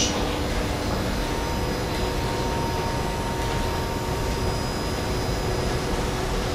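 Steady drone of a ship's machinery and ventilation heard inside the wheelhouse: an even noise with a few faint constant hums over it, unchanging throughout.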